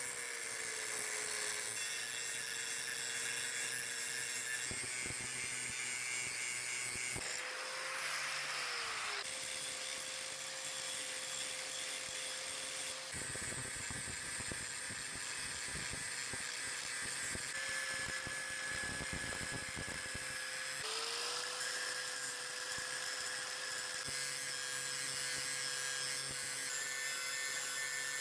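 A handheld electric power tool running on metal with a steady motor whine over a bright hiss. Its pitch sags briefly a few times as it is loaded. The sound changes abruptly several times, as at edits.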